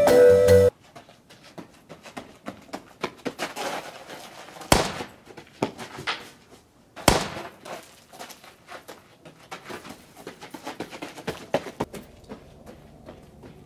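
Music cuts off just after the start. Then comes a scatter of small knocks and scuffs, with two loud, sharp bangs about two seconds apart.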